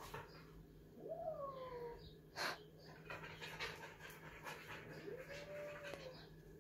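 Pet animal sounds: panting and two drawn-out cries that rise and then fall in pitch, about four seconds apart, with a single sharp tap between them.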